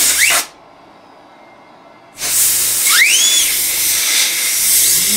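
Can of compressed air spraying into a 3D printer's cooling fan: a short blast at the start, then a long steady hiss from about two seconds in, with a brief rising whistle a second after it starts.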